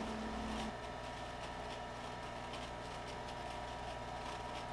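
Extreme Q desktop vaporizer's fan running steadily as it blows up a vapor bag: a constant hum with several fixed tones, easing slightly under a second in.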